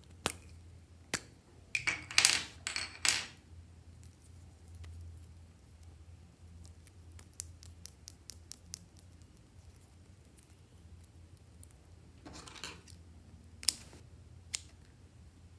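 Plastic lipstick tubes clicking and rubbing as they are handled and uncapped, with a short cluster of scratchy plastic sounds about two to three seconds in. Near the end a pair of scissors snips through a lipstick with a sharp click.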